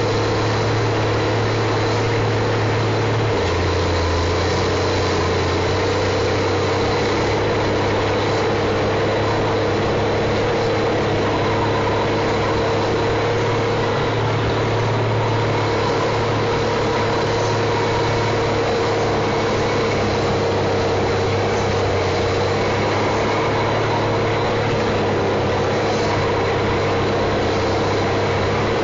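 John Deere 540E log skidder's diesel engine running steadily, heard from inside the cab. The engine note drops a little a few seconds in, then comes back up.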